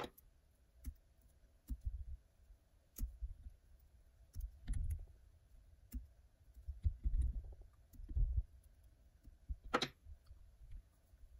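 Scattered small clicks and soft low knocks from hands working deer belly hair and thread on a hook held in a fly-tying vise; the sharpest click comes near the end.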